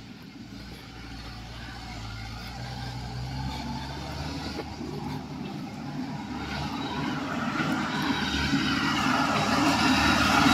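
Tractor engine running as it approaches, growing steadily louder.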